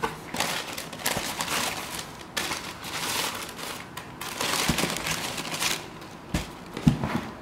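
Tissue paper rustling and crinkling as hands move it around inside a shoebox, in several bursts, with two thumps near the end.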